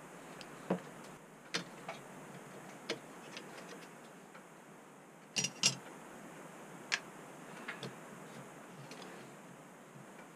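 Irregular small clicks and taps of metal and plastic parts as a floppy drive is handled and taken apart by hand, with a louder pair of knocks about five and a half seconds in.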